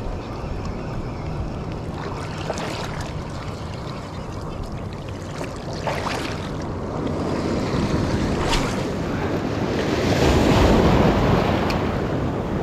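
Small, flat surf washing in around the shallows, with wind on the microphone; a wave surges through louder about ten seconds in.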